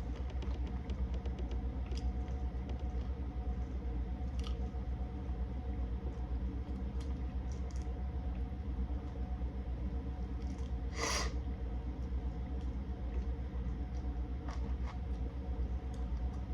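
Eating a seafood boil close to the microphone: faint clicks and smacks of chewing and handling shellfish, with one louder short crackle about eleven seconds in, over a steady low hum.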